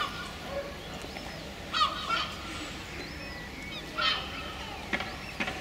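Gulls calling: a few short calls, the loudest a little under two seconds in and again about four seconds in, over steady background noise.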